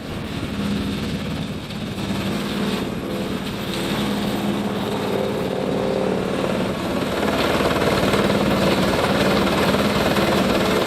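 A heavy wood-processing machine's engine running steadily with a hum and a noisy grinding wash, growing louder about seven seconds in.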